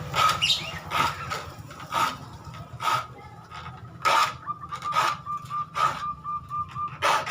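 A steel file rasping across the teeth of a hand saw, about one stroke a second, as the dull saw is sharpened. Each stroke sets the blade ringing with a thin high tone.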